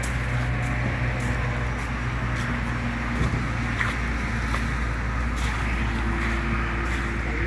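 Steady motor-vehicle noise: an engine running close by, with the hum of traffic from the toll road behind it. The engine's hum shifts about three seconds in and again near six seconds.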